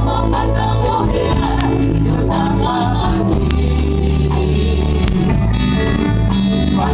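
Live gospel band performing a Tongan song: voices singing over band accompaniment with steady sustained bass notes.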